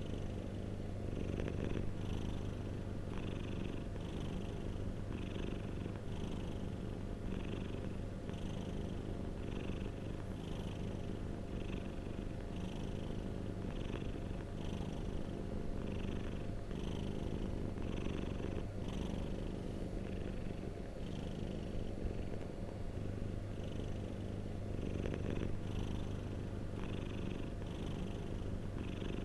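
Domestic cat purring close to the microphone: a steady low rumble that pulses with each breath, a little faster than once a second.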